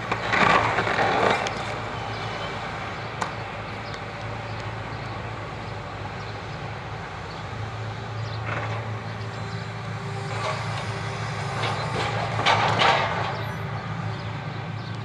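Hitachi excavator's diesel engine running steadily while its demolition grab crunches and crashes through the house's timber, roof and walls. Loud bursts of splintering and falling debris come at the start and again later on.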